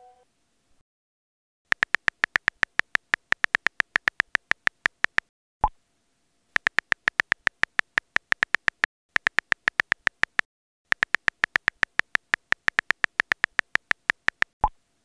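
Phone keyboard key clicks in fast runs of about eight taps a second as WhatsApp messages are typed, in three runs with short pauses between. A short pop of a WhatsApp message being sent sounds after the first run and again near the end.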